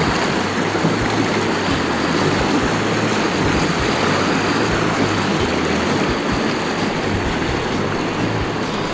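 Steady rush of river water over a riffle, an even hiss with no break.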